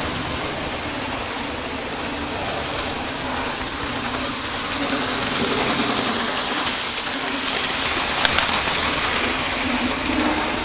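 Model railway train running on the layout: a steady whirring rumble from the small electric motor and the wheels on the track, with a hiss over it.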